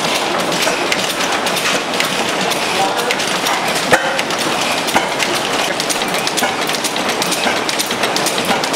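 Antique stationary gas engines running together, a steady clatter of rapid mechanical ticks and knocks.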